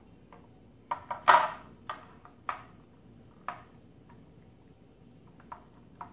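About ten irregular sharp clicks and taps from small plastic and metal parts handled against a small plastic boat hull. Most fall in the first few seconds, the loudest a little over a second in.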